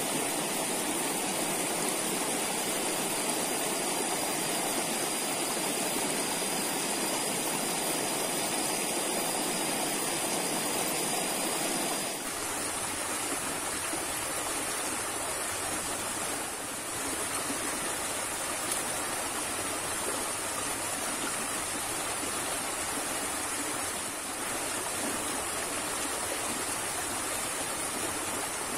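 Steady rush of a fast, muddy river pouring over a small riffle of rocks. The water noise is unbroken, with a slight change in its tone about twelve seconds in.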